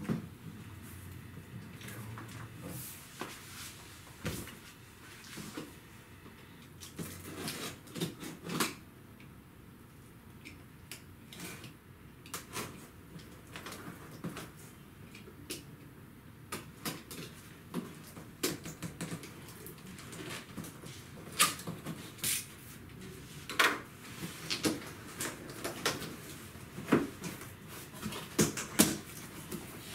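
Cardboard boxes and packing being handled on a glass-topped table: scattered knocks, taps and rustles, coming more often and louder in the last third.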